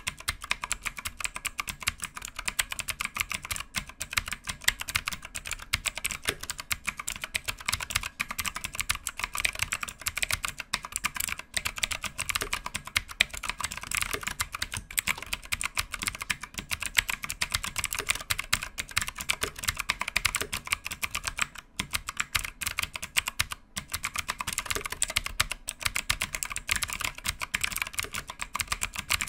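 ABKO K645 mechanical keyboard with GTMX blue clicky switches being typed on fast and continuously, a dense stream of sharp keystroke clicks.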